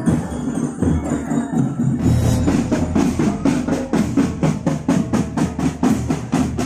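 Marching drum band playing: snare drum strokes in a quick, even rhythm of about four a second over bass drum.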